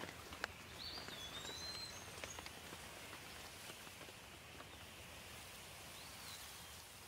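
Light rain falling as a soft steady hiss, with a few sharp drips in the first couple of seconds. A bird calls twice over it: a whistled, gliding note about a second in and a short arched note near the end.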